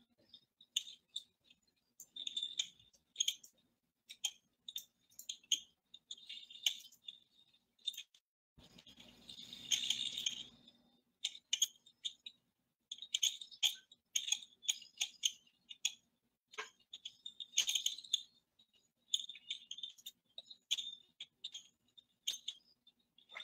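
Irregular light clicks and rattles, a few at a time, over a faint steady hum, with a denser noisy rattle about nine to eleven seconds in.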